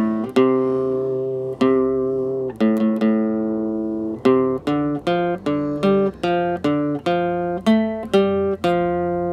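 Background music: a plucked guitar playing a slow melody, one or two notes at a time, each note ringing out and fading, about two notes a second, with a few longer held notes early on.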